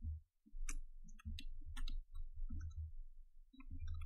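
Computer mouse and keyboard clicks, scattered and irregular, with dull low thumps from the desk between them.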